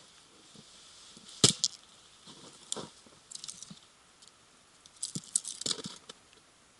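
A series of sharp clicks and knocks, the loudest about one and a half seconds in, with a quick cluster of them near the end.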